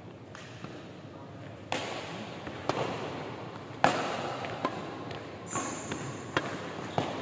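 Badminton rackets striking a shuttlecock in a fast rally: about six sharp cracks, roughly one a second, echoing in a large hall.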